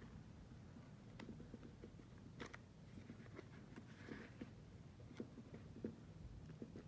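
Faint handling noise: scattered soft clicks and rustles of clear plastic zip pockets in a ring binder being turned, with paper bills being handled, and a slightly longer rustle about four seconds in.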